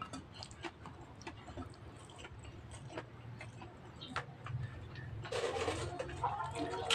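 Close-up eating sounds of a person chewing rice and karedok: scattered wet mouth clicks and lip smacks. Near the end a louder, noisier stretch sets in.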